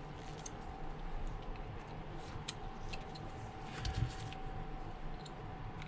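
Faint, scattered light clicks and taps of a smartphone main board being handled and set into the phone's mid-frame, with a slightly firmer knock about four seconds in, over a faint steady hum.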